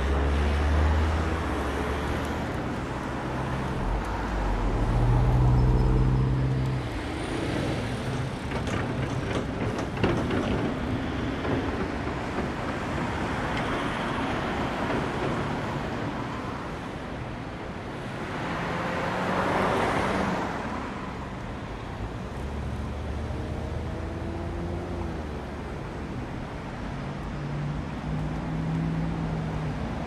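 Road traffic at a city street junction: vehicle engines running and pulling away under a steady wash of traffic noise. A deep engine rumble swells about a fifth of the way in, and a vehicle rushes past about two-thirds of the way through.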